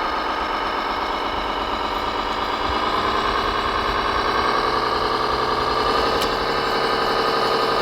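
Scale RC construction machine running: a steady, engine-like drone whose pitch rises about three seconds in and holds higher.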